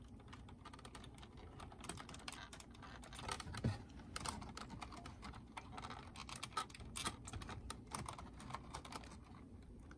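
Faint, irregular small clicks and taps of fingers working plastic wire connectors loose on the circuit board inside a Sharp GF-508SB boombox, with a few louder clicks scattered through.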